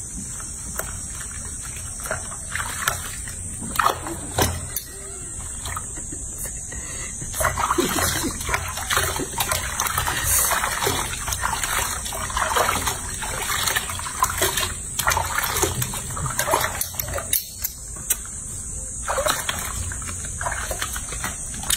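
Soapy water sloshing and splashing in a washbasin as hands scrub a baby macaque, with irregular splashes and drips that get busier about seven seconds in.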